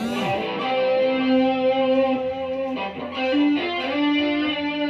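Electric guitar played through the chorus effect of a Korg AX1000G multi-effects pedal, sustained notes with a change of note about three seconds in. The chorus sounds clean, the modulation noise having been repaired.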